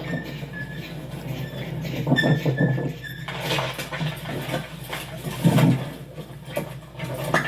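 Animated-film sound effects: a steady low machinery hum under short high squeaks during the first three seconds, then scattered knocks and clatter with a loud thump about five and a half seconds in.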